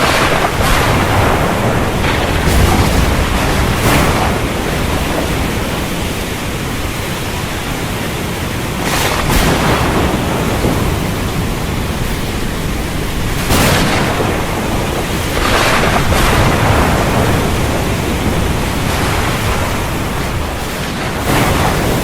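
Storm wind and rough sea heard as a continuous rush of noise with a deep low rumble. It swells every few seconds as waves break and gusts surge.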